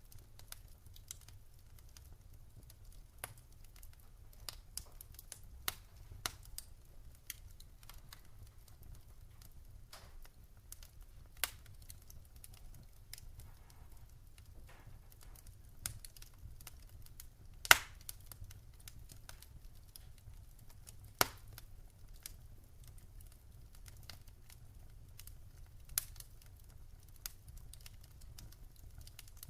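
Wood fire in a fireplace crackling: irregular sharp pops and snaps over a steady low rumble, with one much louder pop just past the middle.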